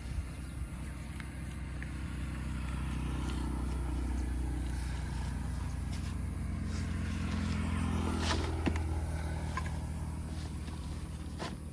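A motor engine passing by, growing louder to a peak about eight seconds in and then fading, with a couple of sharp clicks.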